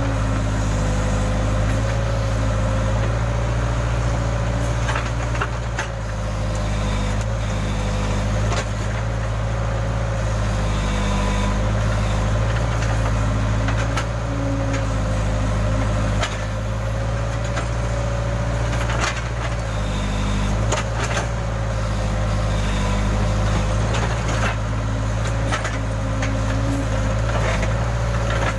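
Case backhoe loader's diesel engine running steadily while the backhoe digs, with a steady whine that wavers slightly in pitch and scattered knocks and clanks from the digging.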